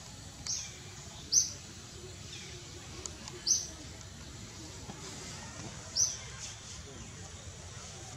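Bird chirping: short, high, sharp calls, four loud ones at uneven intervals and some fainter ones between, over a steady outdoor hiss.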